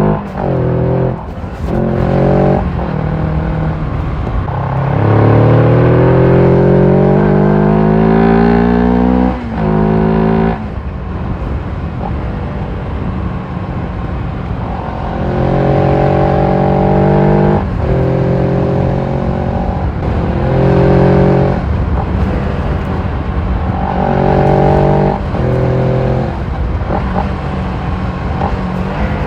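Carbureted motorcycle engine heard through its exhaust, revving: the revs climb for several seconds and drop off sharply about nine seconds in, then rise and hold in short spells of one to three seconds with drops between.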